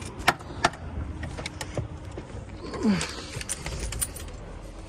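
Semi-trailer swing doors and their metal latch bars being closed: a scatter of sharp metal clicks and clanks, with a short falling creak about three seconds in.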